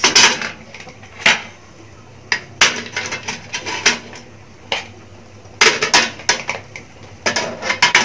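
Raw crab pieces set down on an aluminium steamer tray in a pot: irregular knocks and clatters of shell against metal, several in quick clusters.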